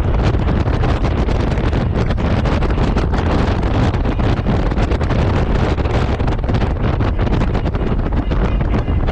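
Wind buffeting the microphone on a moving Honda Gold Wing motorcycle, a loud, steady rush heaviest in the low end.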